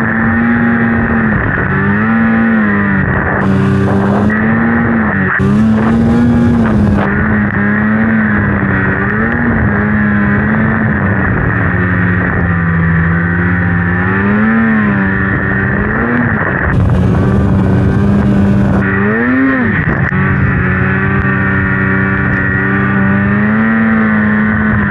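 Polaris Khaos snowmobile's two-stroke engine running hard under load in deep powder, its pitch rising and falling again and again as the throttle is worked. A few spells of hiss come and go over the engine.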